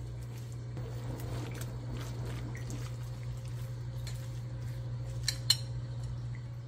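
Wet pancake batter of bean sprouts, chives, egg and frying flour being stirred in a glass mixing bowl: soft wet squishing with small clicks, and two sharper clinks against the bowl about five seconds in, over a steady low hum.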